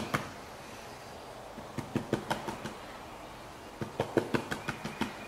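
Green plastic gold pan tapped against the hand: quick runs of light knocks, a few at the start, a few about two seconds in, and a longer run of about seven about four seconds in. The tapping settles the heavy fine gold into one corner of the pan, apart from the black sand.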